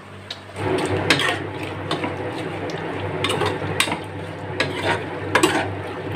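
A utensil stirring thick chicken kadai curry in a metal pot, with wet churning and several sharp clinks and scrapes against the pot's side, starting about half a second in. The yogurt has just gone in and is being stirred into the sauce.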